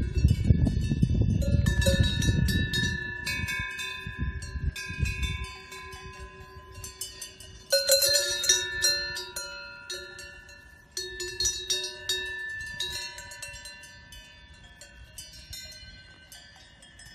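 Several bells clanging irregularly, their tones ringing on and overlapping, over a low rumble that stops about five seconds in. Fresh clusters of strikes come about eight and eleven seconds in, and the ringing fades toward the end.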